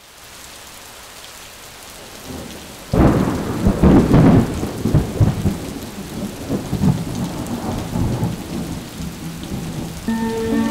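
Thunderstorm: rain falls steadily, then a loud thunderclap breaks about three seconds in and rolls away in rumbles over the following seconds.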